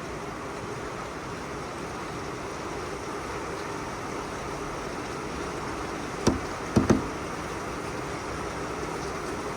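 Heavy rain falling steadily. Two brief knocks come a little over six seconds in, half a second apart.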